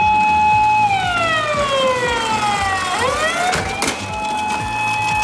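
Siren wailing: a high steady tone that falls slowly over about two seconds, then swoops back up about three seconds in and holds.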